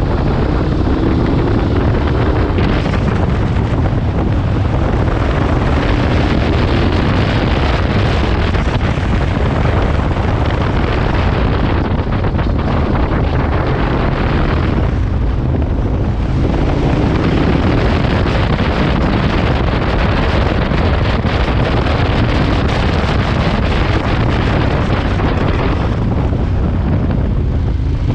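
Wind buffeting the microphone over the steady running of a KTM 1290's V-twin engine on the move at moderate speed, the engine note rising and falling a few times as the rider works through the bends.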